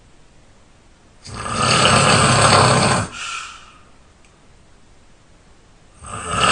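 A person snoring while ill: one long snore lasting nearly two seconds, then a shorter, softer breath, and the next snore starting near the end.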